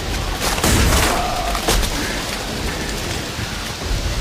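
Battle sound effects: heavy booms of shellfire and scattered gunshots, the strongest boom about a second in and another near the end.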